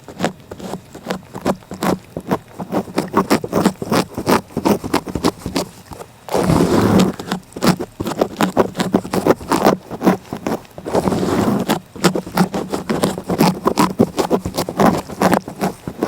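Cat licking close up: a quick run of rasping tongue strokes, several a second, with denser, louder spells about six, eleven and fifteen seconds in.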